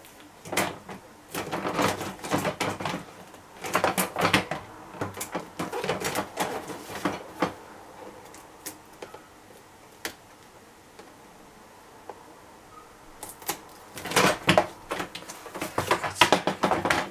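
Unpacking noises: bursts of quick clicking, clattering and rustling as plastic accessories and their packaging are handled, with quieter pauses between the bursts.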